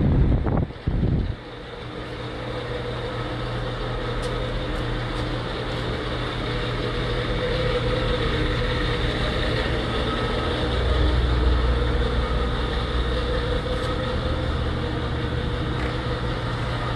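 Steady hum of ventilation machinery with several held tones, after a brief loud low rumble in the first second or so.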